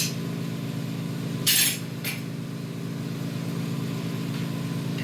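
A steady, low machine hum from neon-bending shop equipment, with a short burst of scraping noise about a second and a half in and a click just after.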